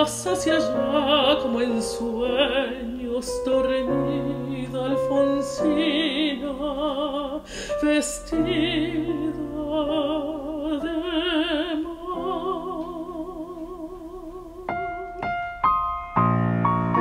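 Mezzo-soprano singing a slow zamba with a wide vibrato, accompanied by a digital piano. Near the end the voice stops and the piano plays on alone.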